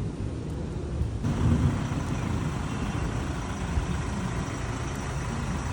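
A motor vehicle's engine running with a steady low rumble, which grows fuller and louder about a second in.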